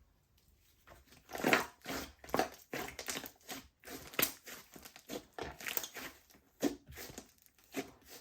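Slime being squished and folded by hand, giving irregular sticky crackles and squelches that start about a second in and fade near the end.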